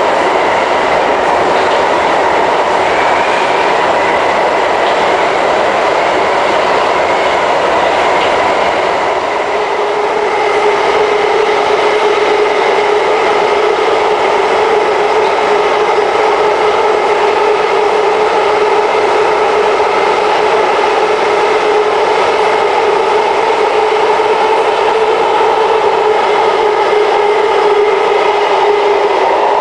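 SMRT C151 metro train running between stations, heard inside the passenger car: a steady rumble of wheels on rail with a steady whine, joined about a third of the way in by a second, lower whining tone.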